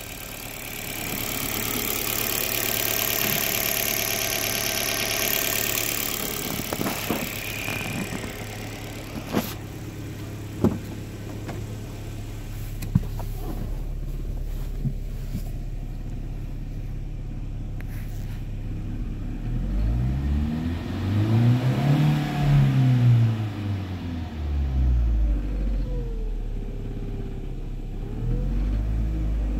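2015 Alfa Romeo Giulietta 1.4-litre four-cylinder petrol engine idling, with a loud hiss over it for the first several seconds close to the open engine bay, then a few sharp clicks and knocks. About two-thirds of the way in, heard from inside the cabin, it is revved up and let fall back to idle once, then given two smaller blips near the end.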